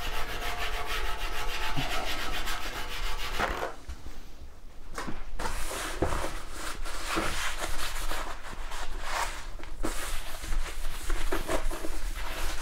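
A plastic laminate-floor-sample scraper scrapes factory rust inhibitor, loosened with WD-40, off a bare cast iron saw table in rapid, even strokes. After a short pause about four seconds in, a paper towel wipes and rubs the table in irregular strokes.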